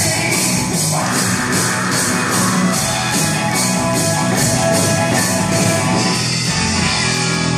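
Children's drum ensemble playing drum kits and barrel drums along with rock music, cymbal strikes keeping a steady beat a little over twice a second.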